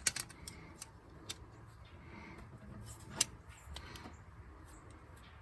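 Scattered small clicks and taps of hand tools and engine parts being handled during an engine teardown, the loudest about three seconds in, over a faint low rumble.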